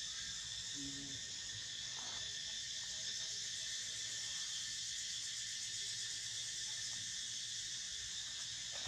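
Steady, high-pitched drone of an insect chorus that holds unchanged throughout.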